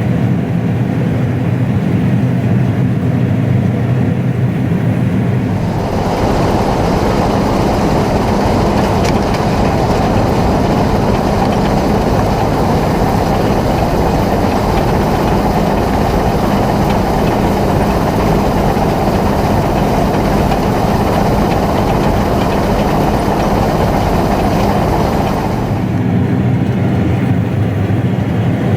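Heavy farm machinery running steadily with a low diesel drone. For about twenty seconds in the middle a louder rushing, rumbling noise comes in over it, then drops away suddenly.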